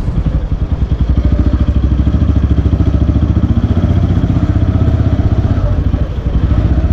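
Motorcycle engine running at low speed while riding, with a steady, rapid, even exhaust pulse that eases briefly about six seconds in.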